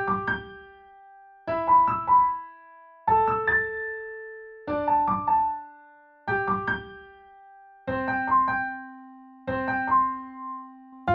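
Keyboard music with a piano-like sound: short phrases about every second and a half, each a quick run of struck notes ending on a held note.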